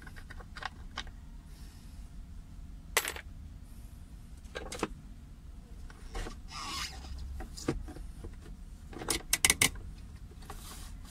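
Plastic centre-console cover around a Mitsubishi Lancer's handbrake lever being worked loose and pulled off by hand: scattered sharp plastic clicks and knocks with a short scraping rub, then a quick run of four loud clicks near the end as it comes free.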